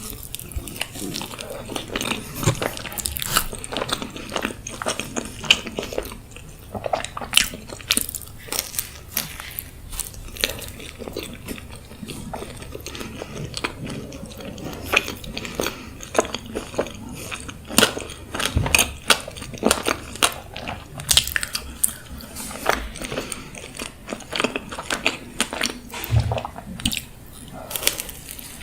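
Close-miked eating: irregular bites and chewing, with crisp, crunchy bites coming thick and fast.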